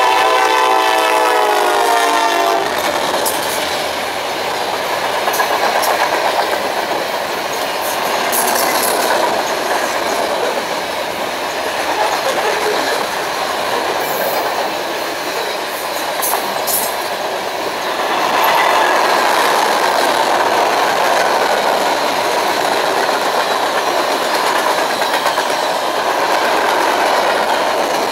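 Horn of the lead CSX SD70MACe diesel locomotive sounding as it passes close by, cutting off about two and a half seconds in. Then the freight cars roll past with a steady rumble and clatter of wheels on the rails, with scattered sharp clicks.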